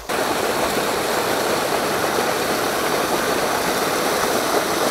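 Steady rushing of water where an outlet pours into a reservoir and churns white, a constant even roar of moving water.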